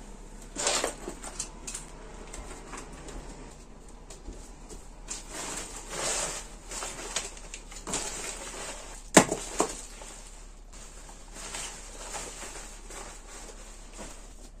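Rustling and handling as clothes and a padded fabric bag are picked up and moved about, with a sharp knock about nine seconds in and a smaller one just after.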